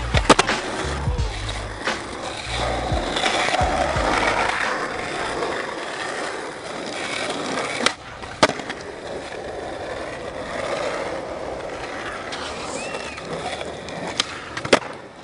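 Skateboard wheels rolling on asphalt, broken by several sharp clacks of the tail popping and the board landing: a pair at the start, a pair about eight seconds in and a pair near the end. A hip-hop beat plays under it for the first four seconds or so, then stops.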